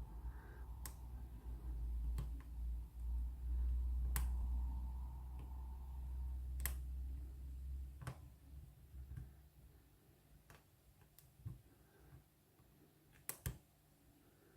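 Scattered small sharp clicks of a hook pick and tension tool working the pins inside a Lockwood padlock, one every second or two. A low rumble of handling runs under them for the first eight seconds or so, then stops.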